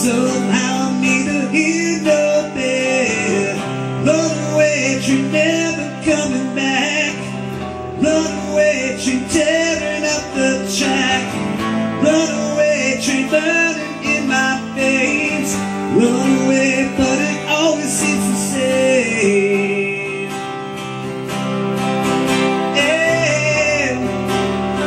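Two guitars playing an instrumental passage of a song: an acoustic guitar strumming chords under a hollow-body electric guitar playing a lead melody with bent notes.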